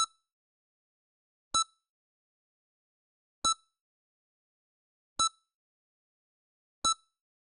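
Heart monitor (EKG) beeping, each short, sharp beep marking one heartbeat. There are five beeps in a slow, steady rhythm, one about every second and three-quarters, with silence between them.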